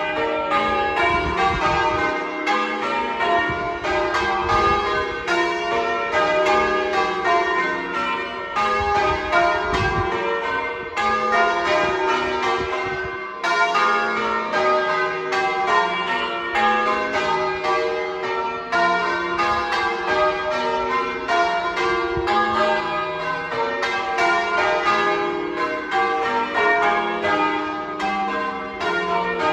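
Church bells change ringing: a set of tower bells struck one after another in a continuous, even rhythm, each note ringing on into the next. A low rumble comes and goes underneath.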